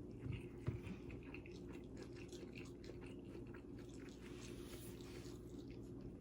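Faint chewing and small wet mouth clicks of someone eating, with a couple of soft knocks in the first second.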